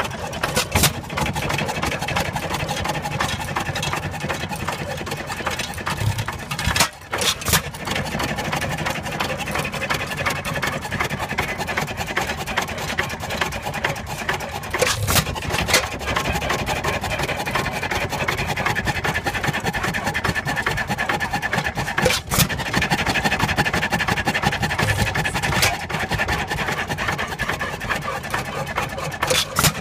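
Bates & Edmonds stationary gas engine running, its valve gear and igniter linkage clattering steadily, with a sharper, louder crack about every seven seconds.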